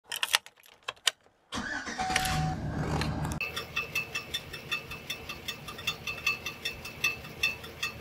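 Keys click into the ignition, then the 2009 GMC Sierra's 5.3-litre V8 cranks and starts about a second and a half in. As it runs, a rapid, uneven metallic ticking, about four a second, rings from the bellhousing: the starter's loose pinion gear tinging against the flex plate.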